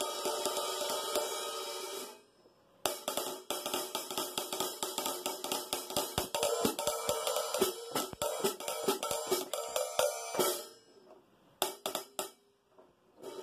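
Drumstick playing a 15-inch Paiste Sound Edge hi-hat held by a Tama Sizzle Touch drop clutch: a ringing wash for about two seconds, then after a brief stop a fast run of strikes for about seven seconds, and a few more hits near the end.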